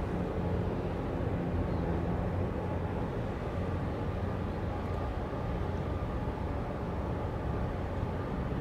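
Low, steady engine drone of a 2,190 TEU container ship under way at harbour speed, passing close by.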